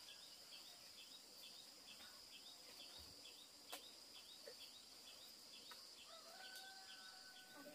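Faint countryside ambience: a steady high-pitched insect drone with a short chirp repeating about three times a second. Near the end a faint steady two-note tone comes in.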